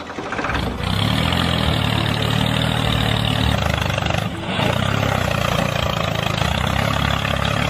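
An engine running steadily, with two short dips in level, one about a second in and one a little past the middle.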